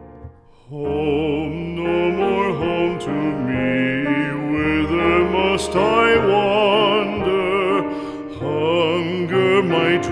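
Solo classical singing, slow, with a wide vibrato, over a piano accompaniment.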